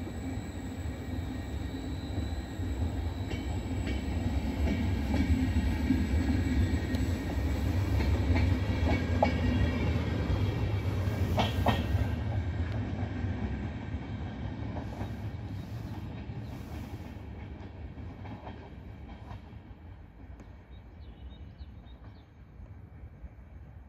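Vivalto double-deck regional train, hauled by an E464 electric locomotive, pulling away and running off along the line: a low rumble of wheels on rails with a steady electric whine above it. It grows louder to a peak around the middle, with a few short clicks, then fades steadily as it recedes.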